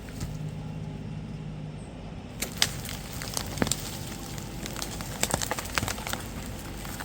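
Tractor engine running low and steady, with dry brush and twigs crackling and snapping irregularly from about two and a half seconds in.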